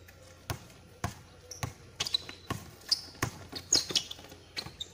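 Basketball bouncing on a hard outdoor court, a string of sharp, irregular bounces about two a second.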